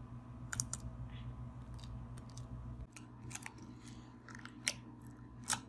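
Hands kneading and squeezing watery Elmer's-glue slime in a ceramic bowl, giving faint, irregular wet clicks.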